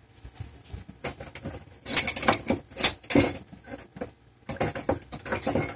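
Small metal tools clinking and rattling as they are handled and picked through while a smaller screwdriver is fetched, with the loudest clinks about two to three seconds in.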